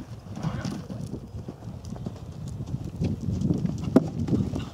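A horse's hoofbeats at the canter on sand footing, dull uneven thuds as it takes low jumps, with one sharp knock near the end.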